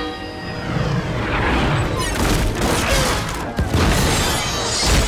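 Film sound effects of cannon-fire explosions and crashes over a dense rumble, with several sudden loud hits, under an orchestral score.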